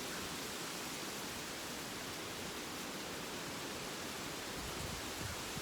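Hurricane wind gusting through trees: a steady rushing hiss, with low buffeting thumps on the microphone near the end.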